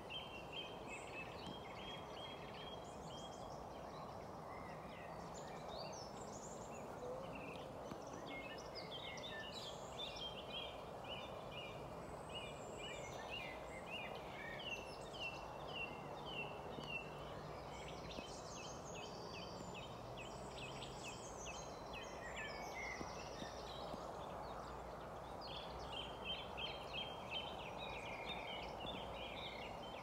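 Small birds singing outdoors: runs of quick, repeated high chirps that come and go in clusters, over a steady background rush.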